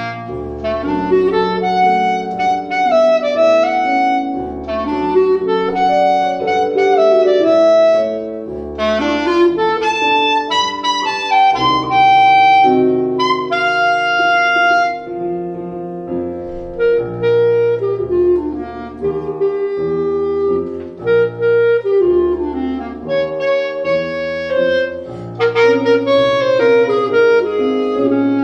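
Clarinet and piano playing a duet: the clarinet's sustained melodic line over piano accompaniment.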